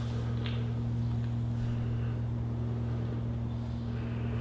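A steady low hum with an even pitch, and a few faint light clicks in the first second and a half.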